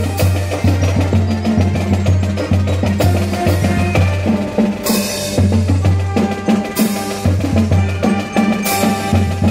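A live brass band playing a march-like tune over a strong low bass line, with a drum kit and bass drum keeping a steady beat. There are several bright cymbal crashes in the second half.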